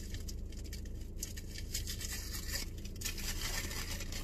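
Paper burrito wrapper crinkling and rustling in irregular bursts as it is unfolded by hand, busier in the second half, over a low steady hum.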